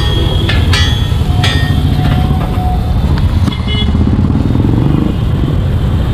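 A metal spatula clanks and scrapes on a flat iron street-food griddle, with several sharp ringing clinks in the first second and a half and another near the middle. Under it runs a loud, steady low rumble.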